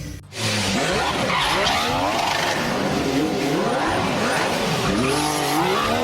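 Racing cars with tyres squealing and skidding, a dense run of overlapping rising and falling squeals over engine noise, starting abruptly about half a second in.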